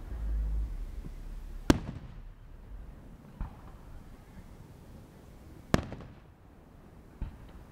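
Fireworks shells bursting: two loud, sharp bangs about four seconds apart, each trailing off in a rolling echo, with fainter bangs between and after them.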